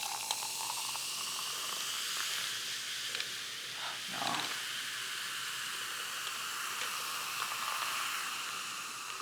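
Carbonated soft drink fizzing: a steady hiss of bubbles.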